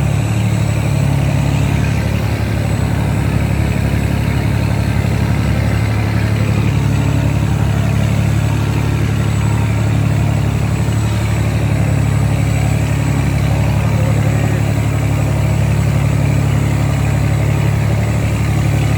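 Boat engine running steadily with a low, even hum and no change in pitch, as it pulls a three-deck ship stuck in mud.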